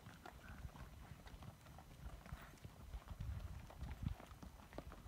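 Hooves of a string of saddled mules clopping on a packed dirt trail: a faint, irregular patter of many steps.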